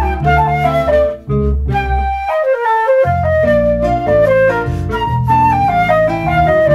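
Flute, electric bass guitar and nylon-string classical guitar playing an Afro-Cuban mambo, the flute carrying the melody in quick descending runs. The bass and guitar drop out for a moment about two and a half seconds in, leaving the flute alone, then come back in.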